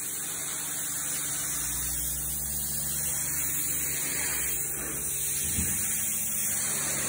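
Pressure washer running steadily: a continuous high hiss over a low hum, with a brief low bump about five and a half seconds in.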